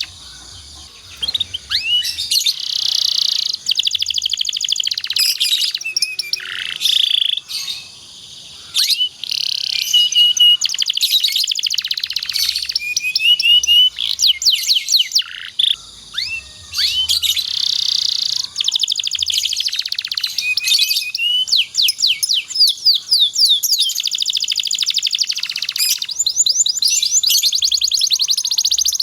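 Domestic canary singing a long, loud song of fast trills and rolls of quickly repeated chirps, with only a few short pauses.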